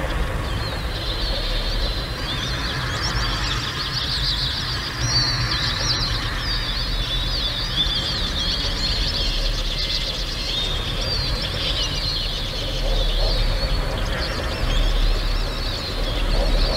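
Many small birds chirping and chattering at once, a dense run of quick, high overlapping chirps over a steady low rumble.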